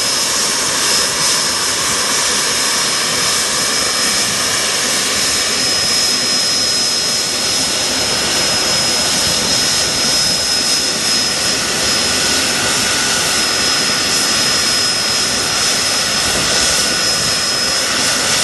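Gulfstream III business jet's turbines running steadily: a loud, even jet rush with a constant high-pitched whistle over it.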